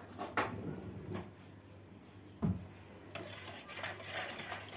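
A few separate clinks and knocks of a metal spoon against a plastic mixing bowl, one heavier thud about halfway, then the spoon stirring yeast into lukewarm water with soft scraping near the end.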